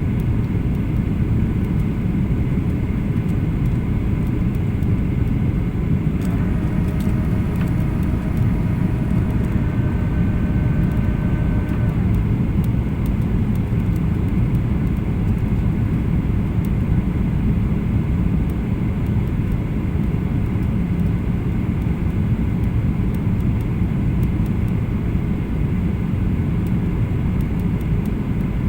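Steady cabin noise of a Boeing 737-800 in flight: a constant low rumble of engines and airflow heard from a passenger seat. About six seconds in, a faint steady tone sounds for several seconds, changing pitch partway through, before fading.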